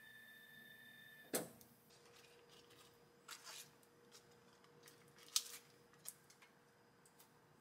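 A faint steady whine ends with a sharp click about a second in. After that come soft, scattered rustles and light taps as romaine lettuce leaves are laid onto a tortilla over plastic wrap.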